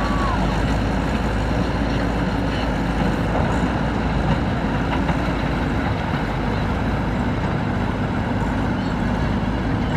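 Diesel engine of a Hitachi excavator running steadily under working load.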